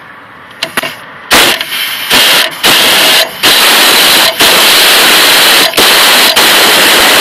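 A 3/8-inch impact wrench hammering loudly, driving a socket on an extension to tighten the nut of a new sway bar link. It goes in a few short bursts at first, then runs almost without a break for about four seconds, with a few brief pauses, until it stops near the end.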